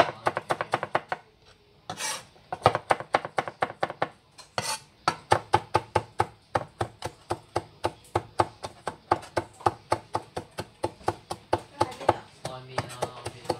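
Kitchen knife mincing garlic and ginger on a cutting board: a fast, even run of chopping strikes, about four a second, starting after a short lull in the first couple of seconds.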